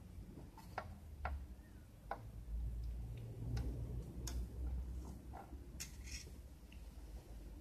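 Light clicks and taps, about a dozen at uneven intervals, from a soldering iron and a circuit board being handled during through-hole soldering, over a low rumble.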